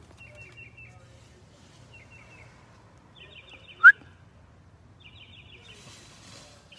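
A small bird calling from the trees: short bursts of quick, high chattering chirps, repeated every second or two. About four seconds in comes one sharp, loud, rising squeak, much louder than the calls.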